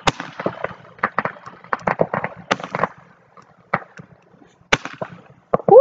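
Consumer aerial firework bursting: a quick, irregular series of sharp pops and cracks, thinning out to a few scattered pops after about three seconds.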